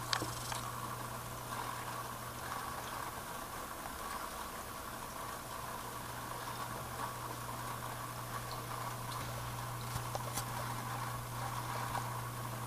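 Aquarium equipment running with a steady low hum and a steadier higher drone above it, with a faint click near the start and another about ten seconds in.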